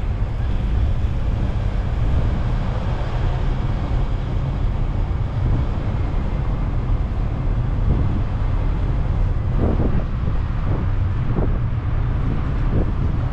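Steady low rumble of a sightseeing road train running through city streets, heard from aboard, with wind buffeting the microphone.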